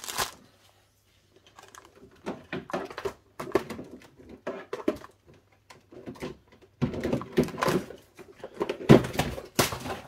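Rummaging through craft supplies: a run of small clicks, rustles and knocks as packets and boxes are handled. Louder clattering bursts come in the last few seconds as things are dropped to the floor.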